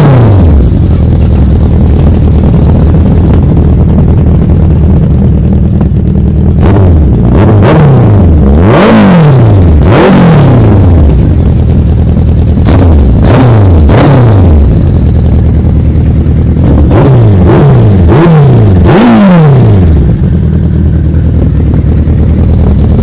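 2010 Suzuki Hayabusa GSX1300R inline-four running through an aftermarket Race Fit slip-on exhaust, idling between repeated throttle blips. The revs climb sharply and drop back, often two or three blips in quick succession.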